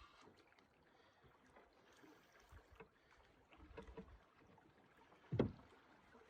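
Faint scattered knocks and rustles from a canoe, with one louder hollow thump against the hull about five seconds in.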